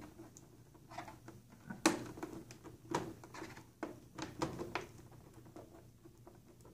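Slotted screwdriver prying and scraping at the absorbent pad in the ink well of an HP Officejet 100 printer: a run of irregular small clicks and scratches, sharpest about two and three seconds in, then thinning out.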